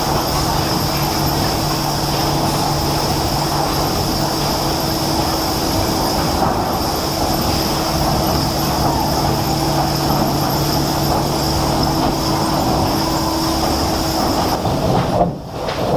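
Steady running of heavy industrial machinery: a continuous rumble with a constant low hum and a high whine, which stop shortly before the end, followed by a brief drop and then fresh machine noise.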